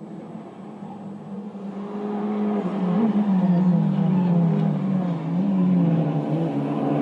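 Race car engine running, growing louder over the first three seconds, its pitch wavering up and down.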